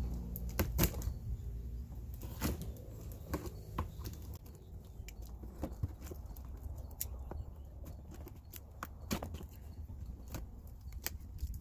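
Cardboard box and plastic packaging being handled and opened, with irregular rustles, crinkles and sharp clicks and knocks.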